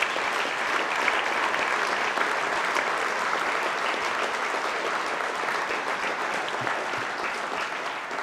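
A large seated audience applauding steadily, a dense clatter of many hands that eases off slightly near the end.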